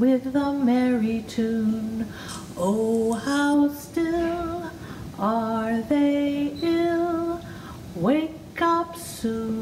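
A woman singing a song solo, one voice moving from held note to held note.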